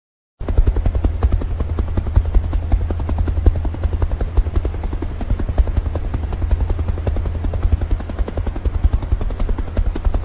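Helicopter in flight: rotor blades beating rapidly and evenly over a low engine rumble, starting abruptly about half a second in and holding steady.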